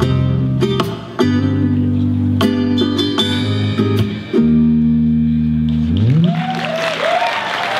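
Rock band of electric guitar, bass guitar and drums playing the final bars of a song and ending on a held chord about six seconds in. Audience applause with whistles follows at the end.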